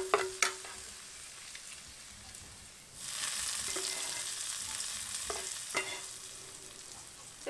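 Metal ladle clinking and scraping in a nonstick frying pan of hot oil with golden-fried chopped aromatics. About three seconds in, a loud sizzle starts suddenly and slowly dies down.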